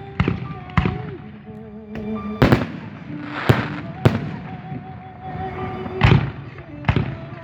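Fireworks going off: about seven sharp bangs at uneven intervals, each echoing briefly off a nearby wall.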